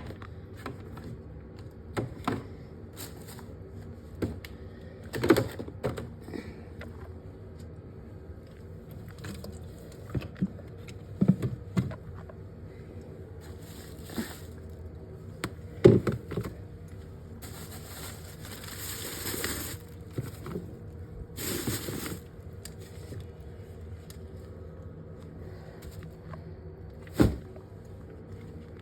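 Scattered knocks, clicks and scrapes of things being handled, the loudest at about 5, 11, 16 and 27 seconds, with two hissing, rubbing stretches of a second or two near the middle. A steady low hum sits underneath.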